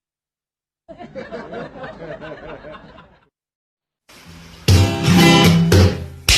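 Strummed acoustic guitar music that comes in about four seconds in and gets loud, with steady strums. Before it, after a short silence, there is a softer wavering sound for about two seconds.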